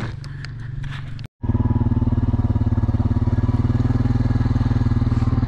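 A small vehicle engine running close by, with a fast, even pulsing. It drops out briefly a little over a second in and comes back louder.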